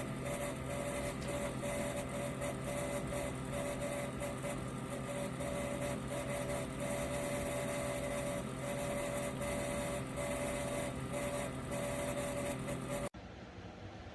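Sunnote ceramic space heater's fan running with a steady whir and hum. About thirteen seconds in it cuts off abruptly, leaving a quieter, duller hiss.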